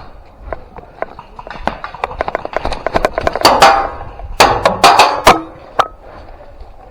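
Footsteps crunching through dry leaves and brush, coming quicker and louder toward the middle, then stopping shortly before the end.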